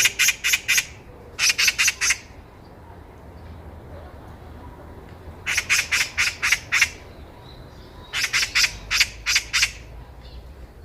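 Oriental magpie chattering: four bouts of rapid, harsh rattling notes, at the start, about a second and a half in, around five and a half seconds in, and from about eight seconds in.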